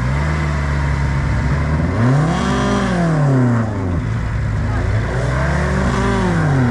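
A vehicle engine stuck in waterlogged mud is revved up and let fall back twice in long surges, over a steady idle, as the vehicle tries to drive out.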